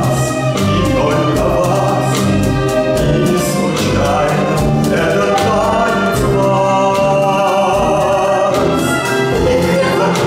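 Song with band accompaniment, a steady beat and voices singing.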